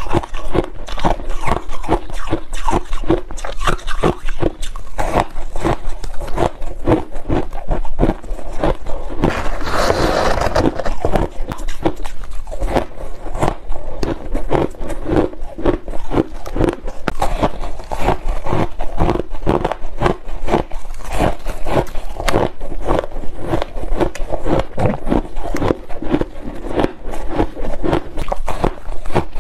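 Crushed ice being bitten and chewed, a rapid, continuous run of sharp crunches, with a denser, louder stretch of crunching about ten seconds in.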